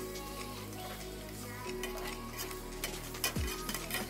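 Chopped tomatoes, dried meat and dried fish sizzling in hot oil in an aluminium pot, stirred and scraped with a slotted metal spoon, with frequent short clicks and pops.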